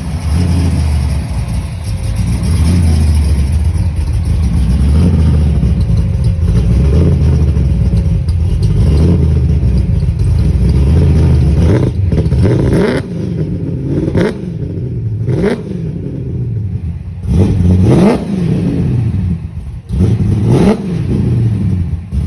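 Modified Holden 304 V8, stroked with a 355 crank and breathing through long-tube headers into a 3.5-inch exhaust, running steadily for about twelve seconds. It is then revved in several quick blips, each rising and falling in pitch.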